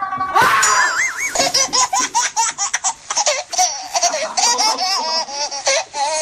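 High-pitched, hearty laughter: a wavering squeal about half a second in, then a long run of quick laughing bursts, several a second.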